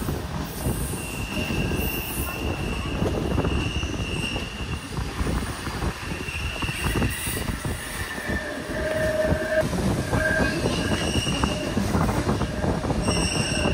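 Train running along the rails with its wheels squealing in high held tones that come and go over a steady rolling rumble, a lower squeal joining about two-thirds of the way through: wheel flange squeal on the line's curves.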